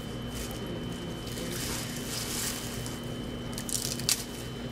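Clear plastic bag crinkling and lettuce leaves being pulled and torn by hand, with a few sharp crackles near the end, over a faint steady hum.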